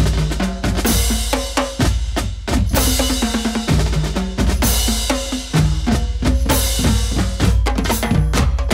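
Percussion-driven music: a fast, steady beat of bass drum and snare hits, with a bright cymbal wash that comes back every second or two.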